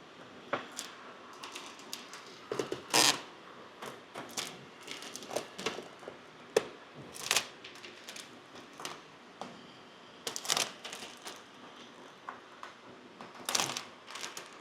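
Plastic window tint film crackling and crinkling in irregular bursts as it is peeled and handled.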